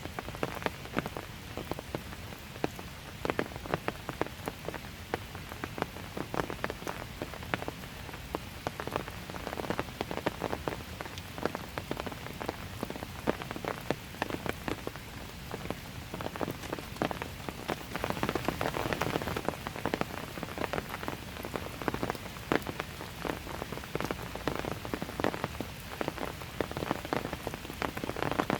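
Steady light rain, with many separate drops pattering close by; the patter thickens briefly about two-thirds of the way through.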